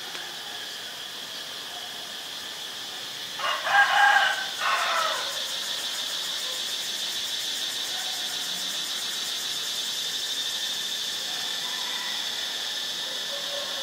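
A rooster crows once, a single crow of under two seconds about three and a half seconds in, over a steady high-pitched insect drone.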